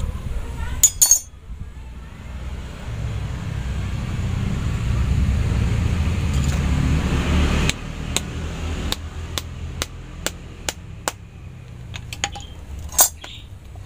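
A low rumble swells for several seconds and stops abruptly about two-thirds of the way through. After that come a string of sharp, light clicks and taps, irregularly spaced, as a knife and stone wedges work the split trunk and root mass of an Anting Putri (Wrightia religiosa) bonsai cutting.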